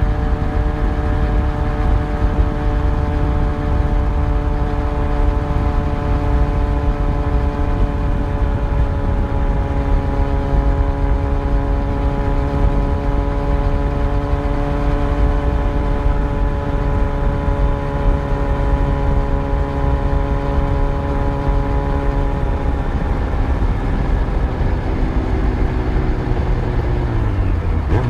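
Yamaha FZ1 inline-four motorcycle engine running at steady cruising revs under a constant rush of riding noise. The engine note sags slowly, then falls more steeply over the last few seconds as the revs drop.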